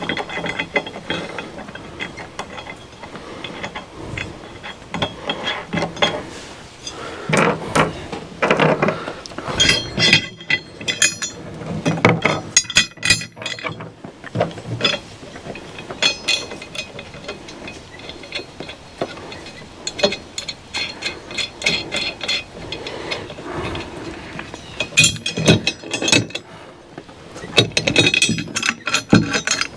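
Steel mounting hardware of an air spring helper kit clinking and knocking as bolts are threaded loosely into an upper mount bracket, with bursts of rapid clicking.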